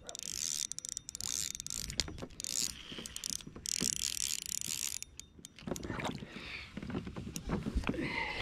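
Spinning reel being cranked in several spells, a mechanical whirring with fine clicks, as a hooked largemouth bass is reeled in to the kayak.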